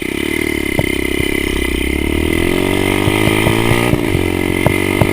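A 110cc Stomp pit bike's four-stroke single-cylinder engine pulls away in second gear, its pitch rising steadily as it accelerates. Near the four-second mark the pitch dips briefly before the engine picks up again. Sharp knocks and clatter come in over the second half.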